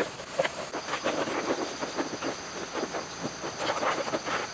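Diesel engine parts being washed by hand in plastic tubs of cleaning liquid: the liquid sloshes, and metal parts clink and knock against each other and the tub in quick, irregular succession.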